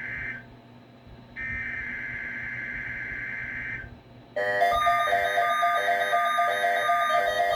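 NOAA Weather Radio SAME header data bursts: two raspy, buzzing bursts of digital code, the second about two and a half seconds long, opening a Required Weekly Test. About four and a half seconds in, several weather alert radios start beeping together in overlapping, repeating tone patterns.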